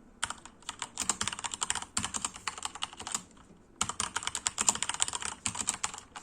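HP Omen Encoder mechanical keyboard with Cherry MX Red linear switches being typed on quickly: a rapid run of key clacks that pauses for about half a second a little past the middle, then resumes and stops just before the end.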